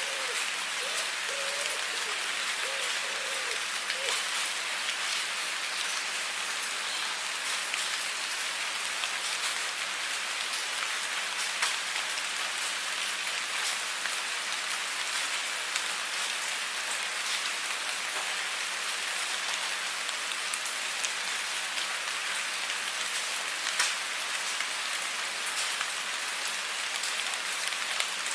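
Steady rain falling, an even hiss with many separate drop hits throughout.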